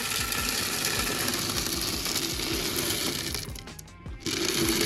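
Dry cat kibble pouring from a clear container into an automatic cat feeder's hopper: a dense rattle of many small pellets striking, pausing briefly about three and a half seconds in, then starting again.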